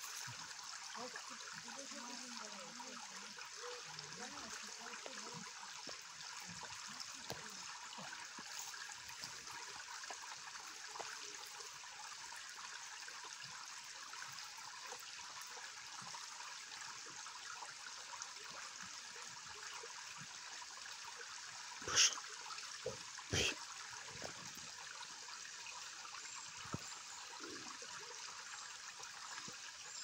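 Shallow rocky stream trickling steadily over stones. About two-thirds of the way in come two sharp knocks about a second and a half apart.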